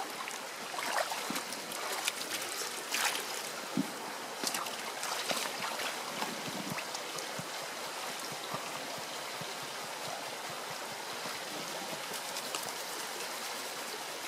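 Water sloshing and splashing in a plastic gold pan as it is tipped and swirled, with water trickling from it into a second pan; the splashes come mostly in the first half, over the steady running of a shallow stream.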